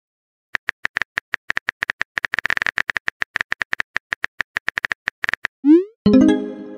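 Texting-story app sound effects: a rapid run of keyboard tap clicks as a message is typed out. Near the end comes a short rising pop and then a chiming tone as the new message bubble appears; the chime is the loudest sound.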